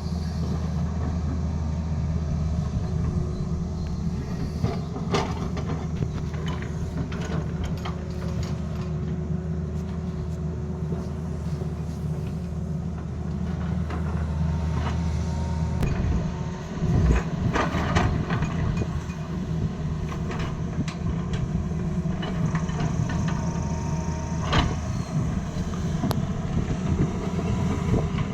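Tata Hitachi excavator's diesel engine running steadily under load, with scattered sharp knocks and scrapes as the bucket cuts into the road surface. The engine note changes about halfway through, followed by a cluster of loud knocks.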